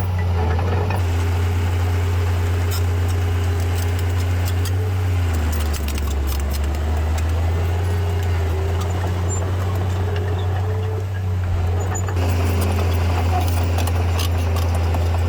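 Heavy-equipment diesel engine running steadily. Its pitch drops about five seconds in and rises again near the end, with scattered light clicks over it.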